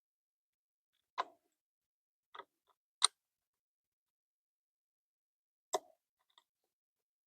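About five separate sharp clicks and taps of small metal parts and hand tools being handled while bolts are started on a steering-wheel quick-release hub. The loudest comes about three seconds in.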